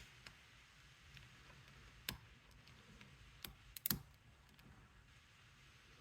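Faint, scattered clicks of a lock pick working the pin tumblers of a Squire SAL40 padlock held under heavy tension: one click about two seconds in and a quick cluster of three near four seconds.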